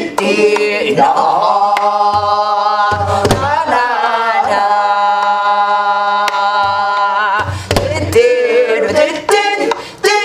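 Korean gueum: a woman singing a wordless melody on vocables, with wavering long-held notes, one held through most of the middle. Sparse strokes on a soribuk barrel drum beat time beneath the singing.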